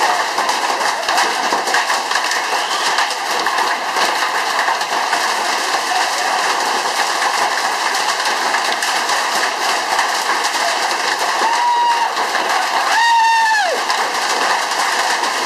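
Hail and heavy rain pelting down on a paved backyard: a dense, steady clatter of countless small impacts. Near the end a brief pitched call rises and falls once, just after a fainter one.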